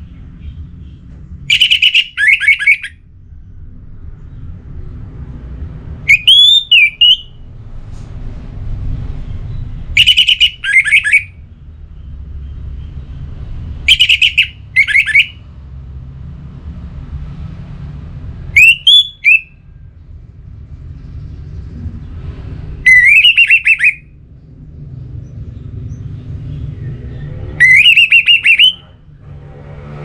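Orange-headed thrush singing: seven loud, short song phrases spaced about four seconds apart, some of them rising sharply in pitch.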